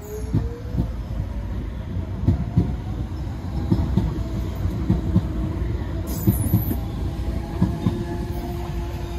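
Docklands Light Railway train pulling out along the platform: the motor whine rises in pitch over the first couple of seconds as it speeds up, then holds steady, over a low rumble with the wheels clacking over rail joints every second or so.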